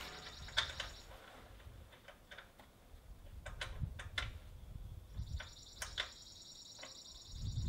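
Ratchet wrench clicking in quick runs as engine mounting bolts are turned in, once near the start and again for the last couple of seconds, with a few separate light metal clicks in between.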